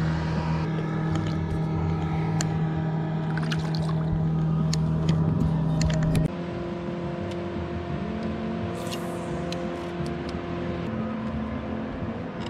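A boat motor hums steadily, then drops in level and changes pitch about six seconds in, with a few light clicks and taps from handling in the first half.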